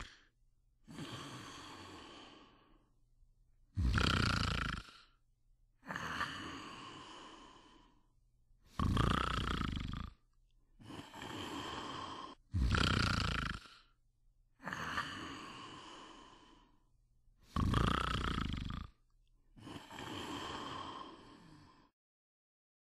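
A person snoring: a loud, deep snore on each in-breath, four times about every four to five seconds, each followed by a softer out-breath lasting about two seconds.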